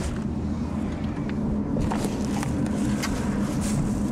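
Steady low hum of a Honda car's engine, heard from inside its cabin.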